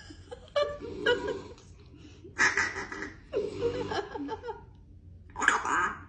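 African grey parrot making four short, laugh-like vocal bursts, the last near the end being the start of a mimicked Tamil phrase, 'let's go in the cage'.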